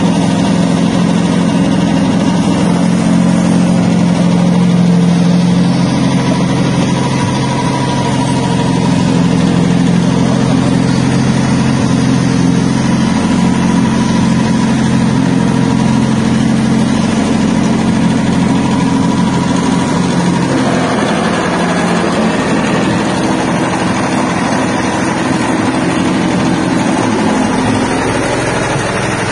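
Stainless soybean hulling and splitting machine for tempe running steadily with a loud motor hum. About twenty seconds in, the low hum fades and a harsher, noisier running sound takes over.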